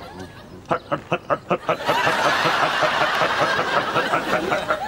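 A man's stifled snickering chuckle, about seven quick pulses in a little over a second, followed by the chatter of a crowd of people.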